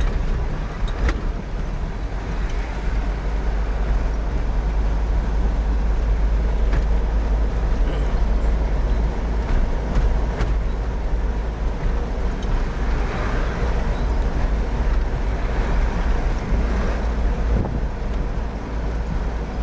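Engine and road noise heard inside the cab of a moving vehicle, a steady low rumble with a few light rattles.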